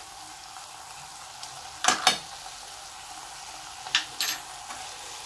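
Grated beetroot halwa sizzling steadily in butter in a pan, its milk fully reduced. A spoon scrapes the pan twice, once about two seconds in and once about four seconds in.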